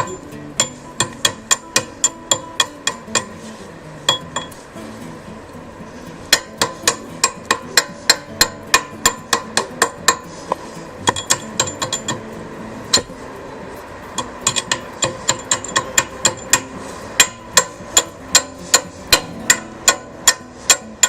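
Chipping hammer striking a fresh 6013 stick weld to knock off the slag: quick, ringing metal-on-metal strikes, about three to four a second, in runs broken by short pauses. The slag is sticking to the bead.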